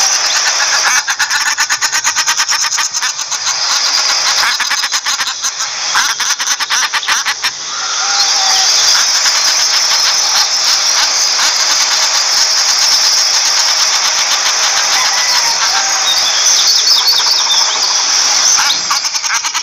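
Common shelduck calling: rapid, harsh cackling packed closely together, with a few short whistled notes mixed in.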